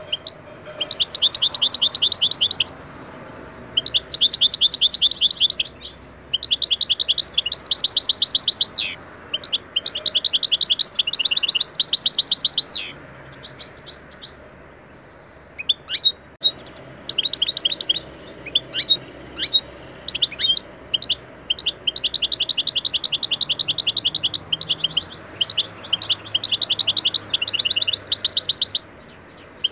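European goldfinch singing: rapid twittering trills and chirps in phrases of a few seconds each, with a pause of about two seconds near the middle.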